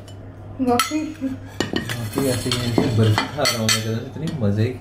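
Cutlery and a ceramic baking dish and plates clinking and knocking as food is served, with people talking over it.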